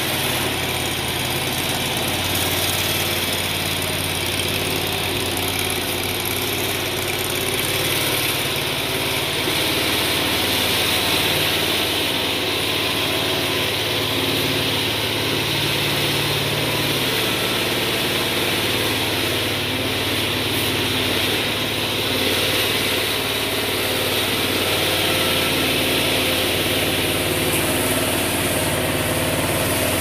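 The small engine of a Landhero mini stand-on track loader idling steadily.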